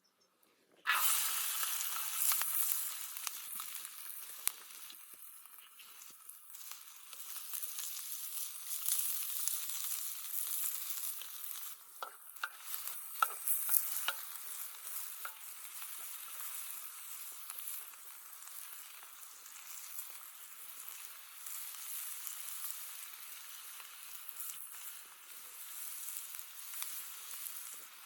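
Food frying in hot oil, a steady sizzle that starts suddenly about a second in, with a few sharp clicks around the middle.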